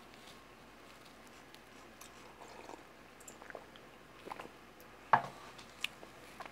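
A person drinking from a tumbler, with faint handling clicks and swallowing sounds. A sharp knock comes about five seconds in, with a smaller click just after.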